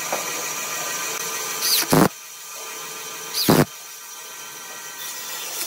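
Two short bursts of a power drill-driver driving screws through a metal lathe faceplate into a wood blank, each spinning up with a rising whine, about a second and a half apart. A steady hum underneath drops away after the first burst.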